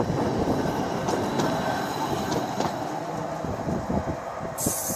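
Vintage Blackpool double-deck tram running past on its rails: a steady rumble from the wheels, with a few sharp clicks and a thin squeal from the wheels. A high hiss comes in near the end.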